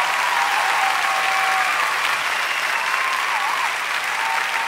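Audience applauding steadily at the end of a live ukulele-group song.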